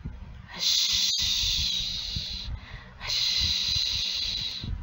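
A person's voice making two long hushing 'husssh, husssh' sounds, imitating the rush of a waterfall.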